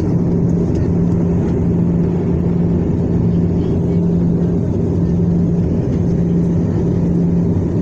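Steady roar of an airliner's turbofan engines and rushing air, heard inside the cabin on descent for landing, with a steady low hum under it.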